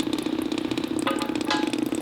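Steady mechanical hum in a repair shop, with two short ringing metallic clinks, like a tool knocking on metal, about a second in and again about half a second later.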